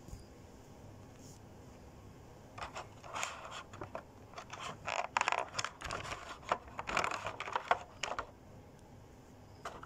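Thin clear plastic packaging tray crinkling and crackling as fingers press on it and handle the figure inside, a dense run of quick irregular crackles starting about two and a half seconds in and stopping near the end.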